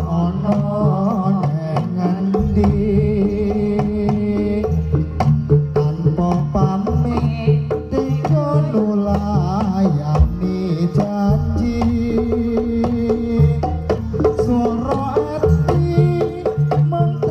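Jaranan gamelan music: hand drums beating a dense, driving rhythm under a wavering, bending melodic line, with no pause.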